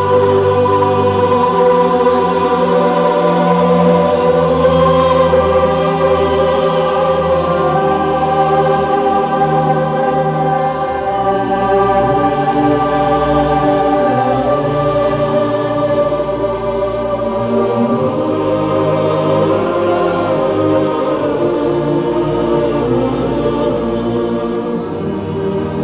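Church choir singing a hymn in long held notes, over a low sustained bass line.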